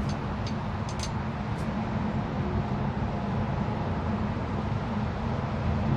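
Steady low rumble of vehicle engines running nearby, with a few faint light clicks in the first couple of seconds.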